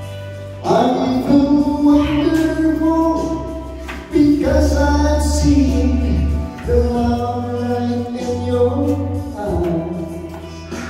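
Karaoke music playing, with singing.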